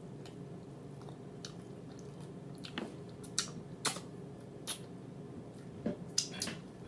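Close-miked chewing with wet mouth smacks: a string of sharp smacking clicks at irregular intervals, most of them in the second half, over a faint steady hum.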